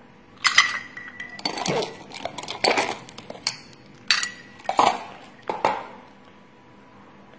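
Ice cubes dropped into a glass mug of tea, then a metal spoon stirring and knocking against the glass: about seven sharp clinks over the first six seconds, some ringing briefly.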